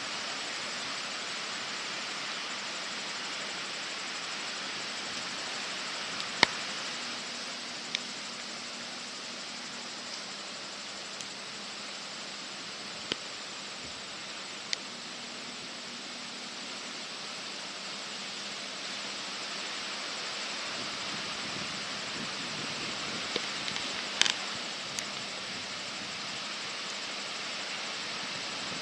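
Steady rushing noise of the swollen, flood-high river, with a few sharp clicks or knocks over it. The loudest click is about six seconds in, and a small cluster comes near the end.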